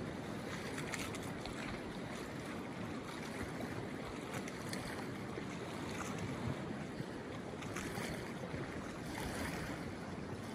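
Fast-flowing open river water rushing steadily past snow-covered shore ice, with faint small splashes.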